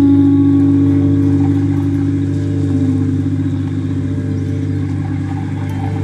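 Sustained electronic drone of several steady pitched tones from a vocoder played on a small keyboard, filtering the surrounding city and traffic noise into a chord tuned to the site's resonant frequencies. A low cluster of notes holds throughout, and one middle note steps slightly lower about halfway in.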